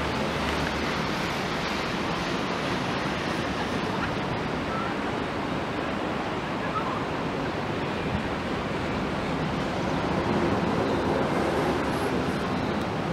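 Steady rushing outdoor noise with no distinct events, swelling slightly about ten seconds in.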